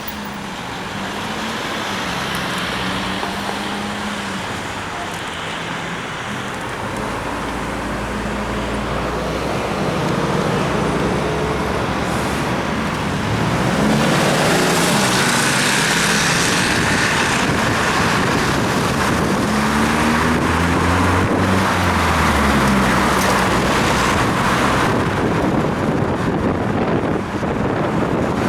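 Road traffic: motor vehicles passing with engine hum and tyre hiss on a rain-wet road, growing louder about ten seconds in and again near the middle.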